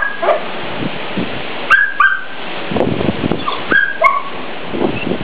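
Short, high-pitched animal calls, a few times, over a steady rushing noise.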